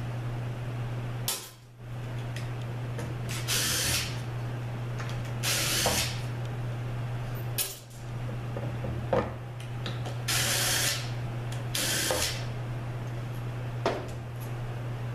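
Short hissing blasts from a pressurised nozzle, four or five of them, each half a second to a second long, with a few light clicks of metal parts between, over a steady low hum.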